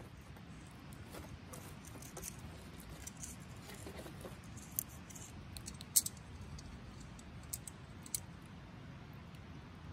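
Wood fire in a metal fire pit crackling, with logs shifted with tongs in the first few seconds. Several sharp pops come between about five and eight seconds in, the loudest near six seconds.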